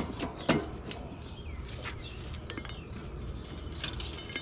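Cast-iron Dutch oven clanking as it is handled in the fire pit: a loud metal clank about half a second in, then lighter clinks of a metal lid lifter against the lid.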